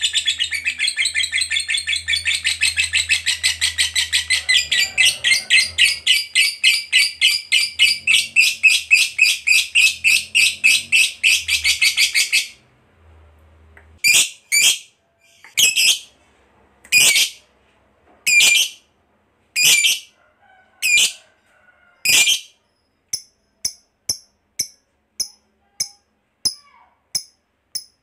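Lovebird giving its long chattering trill ("ngekek panjang"): a fast, unbroken run of shrill notes about five a second for some twelve seconds that cuts off sharply. After a short pause come single loud shrill calls about once a second, then quicker, fainter chirps near the end.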